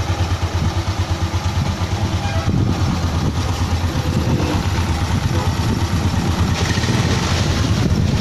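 Suzuki Raider J 110's single-cylinder four-stroke engine running steadily just after being started, with a fast, even pulse, on its first run with a newly fitted 57 mm cylinder block.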